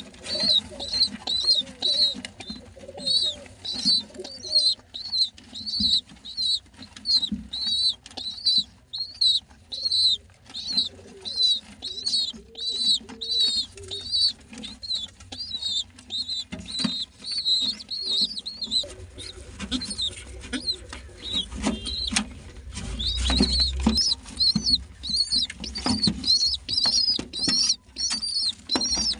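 Baby pigeons (squabs) giving high, squeaky begging calls about twice a second while being fed, with soft thumps and wing flutters from their jostling.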